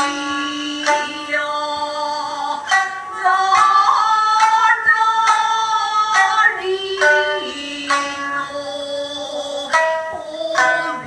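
Traditional Japanese dance music: plucked shamisen notes under a woman singing long, drawn-out phrases.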